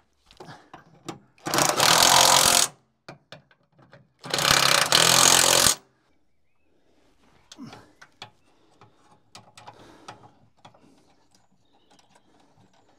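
Two bursts of a power tool with a fast rattle, each about a second long and a couple of seconds apart, followed by quieter clicks and knocks.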